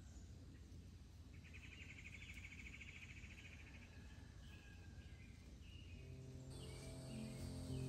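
Faint outdoor ambience with a low rumble; about a second and a half in, a rapid high trill sounds for about two seconds. Soft background music fades in near the end.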